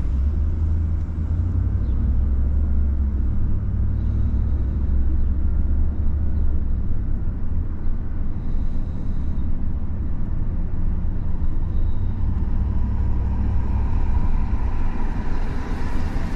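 Road traffic noise: a steady low rumble, with a vehicle passing more loudly near the end.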